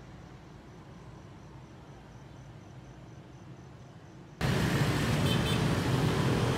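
Faint, steady outdoor night-time city ambience, a low hum of distant traffic with a thin faint high whine. About four seconds in, a loud rush of noise cuts in suddenly.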